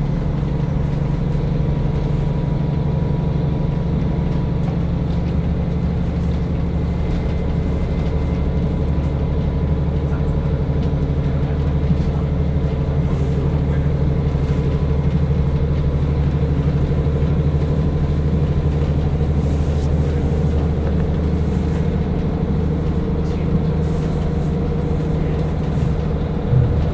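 KiHa 40 diesel railcar's engine running steadily, a low, even drone that holds one pitch without revving up or down.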